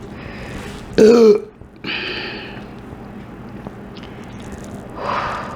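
A woman burps once, short and loud, about a second in, the gas coming up from drinking fizzy Diet Coke. Softer throat and breath sounds follow.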